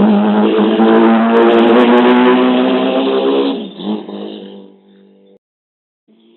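A motor vehicle's engine running loud at a steady pitch, then dropping off and fading away about four seconds in, with the sound cutting out completely shortly before the end.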